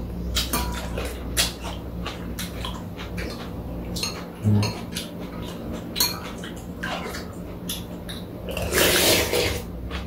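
Metal spoons clicking and scraping against bowls as cold soup is eaten, with a soft low thump about halfway through and a rush of noise lasting about a second near the end.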